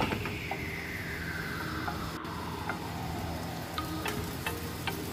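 Chili flakes and seeds sizzling in hot oil in a non-stick pan, stirred with a silicone spatula, then a few sharp knocks about four seconds in as chunks of raw potato drop into the pan. A tone slides slowly downward in pitch.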